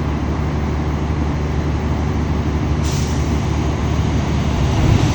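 Meter-gauge diesel locomotive running with a steady low engine hum that grows slowly louder as the train approaches. About three seconds in, a broad hiss joins it.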